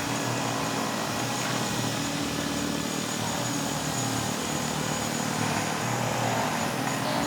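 A steady low mechanical drone with a hum underneath.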